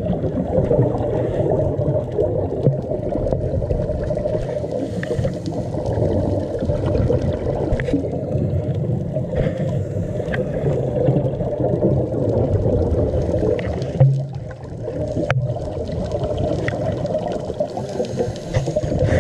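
Underwater sound picked up by a dive camera in its housing: a steady, muffled low rumble of water with gurgling, and scattered faint clicks.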